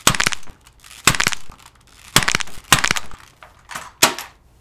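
Repeated sharp cracking and breaking blows, about six of them, irregularly half a second to a second apart: something hard being smashed and broken.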